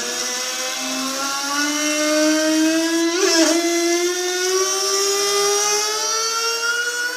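Water tap with running water giving off a loud pitched whine that climbs slowly in pitch, drops suddenly about three seconds in and climbs again, like a racing engine shifting up through the gears, over a hiss of flowing water.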